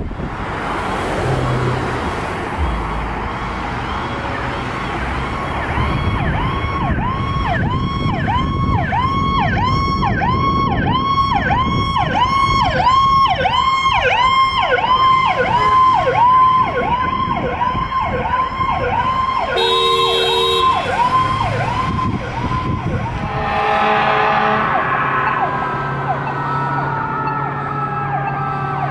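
Powercall electronic sirens on responding fire apparatus: a fast yelp of rapid up-and-down sweeps, about one and a half a second, over engine noise. A short horn blast cuts in about two-thirds of the way through, another follows a few seconds later, and near the end the siren changes to slower falling wails.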